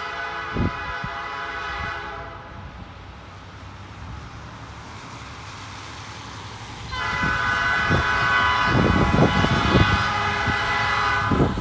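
Diesel freight locomotive's air horn sounding for a grade crossing: a long blast of about two seconds, a pause, then a longer, louder blast starting about seven seconds in, with low knocks underneath as the train draws near.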